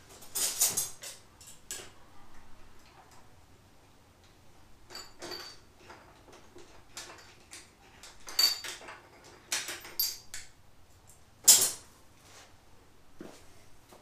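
Small metal transmission parts and tools clinking and knocking as they are handled on a workbench: scattered knocks, a few with a brief metallic ring, the sharpest about eleven and a half seconds in.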